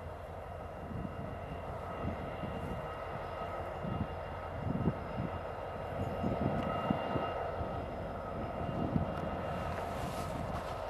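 Illinois Central diesel locomotive's engine running steadily as it slowly approaches pulling a train of tank cars: a continuous drone with a high steady tone above it and irregular low thumps.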